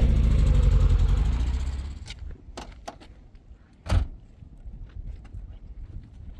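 A motor vehicle's engine running steadily, then stopping about two seconds in, followed by a few knocks and one louder thump about four seconds in, as of a car door shutting.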